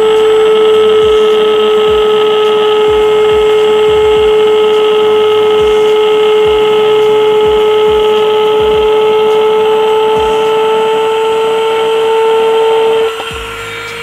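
Handheld mini grinder cutting through a PVC pipe, running at speed with a steady high-pitched whine. About thirteen seconds in it gets quieter as the bit comes out of the cut.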